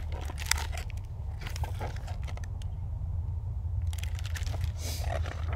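Pages of a large hardcover picture book being turned and handled: paper rustling and crinkling in short, irregular bursts, over a steady low rumble.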